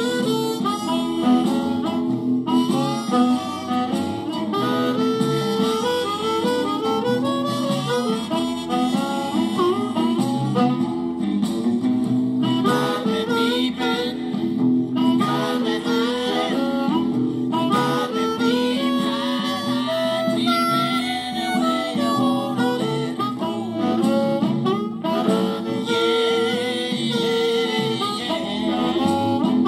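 Hohner blues harmonica played through a cupped Shure Green Bullet microphone into a Boss Katana Mini amp set to crunch, giving a gritty, distorted amplified tone. A continuous blues line with bent, sliding notes.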